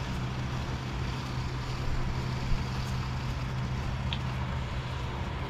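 A steady low mechanical hum with an even background hiss.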